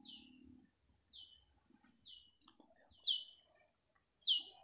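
A bird calling over and over, a short whistle sliding downward, about once a second, the last two calls louder, over a steady high-pitched hum.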